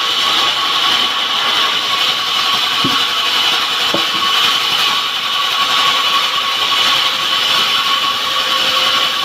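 Power saw running steadily through wood, a continuous high whine with no pauses.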